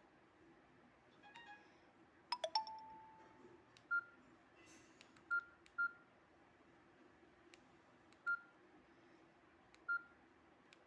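Samsung Guru 1200 feature phone's keypad beeping as keys are pressed: five short, identical key tones at uneven intervals. About two seconds in there is a quick burst of clicks with a brief ringing tone.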